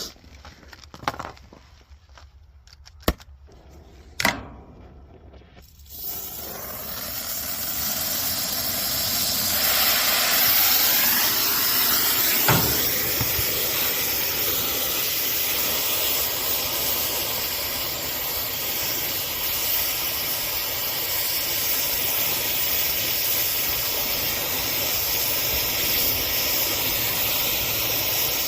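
A few light clicks and knocks, then about six seconds in a loud, steady hiss starts, builds for a few seconds and holds, with one knock partway through: pressurized gas rushing through a heat pump's freshly connected refrigerant line set.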